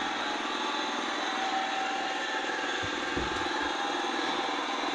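Battery-powered toy lawn mower playing its electronic engine sound, a steady motor-like buzz from its small speaker, with a soft low bump about three seconds in.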